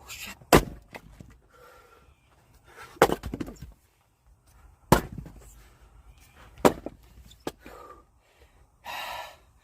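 Firewood being split by hand: four sharp wooden cracks about two seconds apart, the second followed by a short clatter of pieces. A brief rustle comes near the end.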